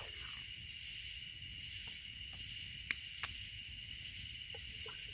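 Steady chorus of crickets, an even high trill, with faint crackles from a wood campfire. Two sharp clicks come about three seconds in, a third of a second apart.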